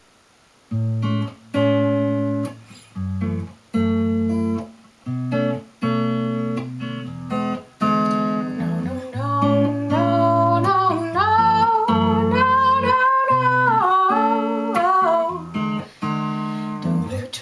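Acoustic guitar playing a song intro: short strummed chords broken by gaps, settling into steadier strumming. From about nine seconds in, a wavering melody without words rises above the guitar.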